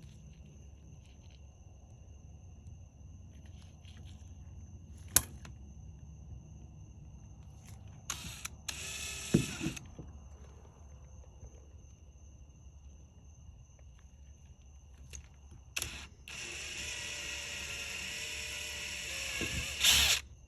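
Power drill boring through the two pieces of a washer suspension rod. It runs in a short burst and a brief run about eight seconds in, then in a longer steady run from about sixteen seconds that winds down near the end.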